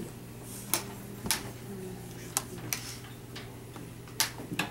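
Scattered sharp clicks and taps, about six of them, from students' dry-erase markers and math boards at their desks, over faint children's murmuring and a steady low hum.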